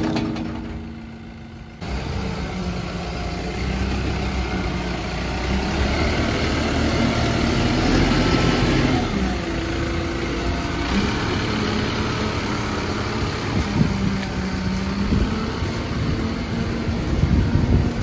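Tata Hitachi Shinrai Prime backhoe loader's diesel engine running steadily at low revs, coming in abruptly about two seconds in.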